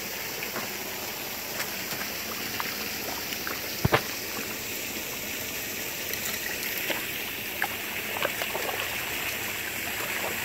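Small waterfall and creek water running steadily over rocks, a continuous trickling rush, with one sharp click about four seconds in.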